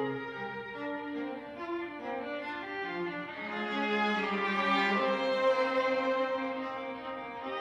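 String quartet of two violins, viola and cello playing held notes, swelling louder about halfway through.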